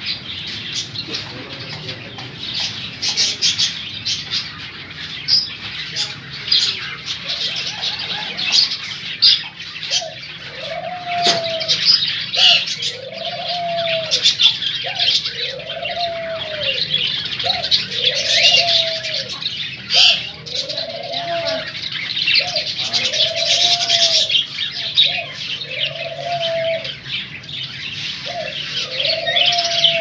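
Many caged small birds, budgerigars among them, chirping and chattering continuously. From about ten seconds in, a lower, arching call repeats roughly every second and a half.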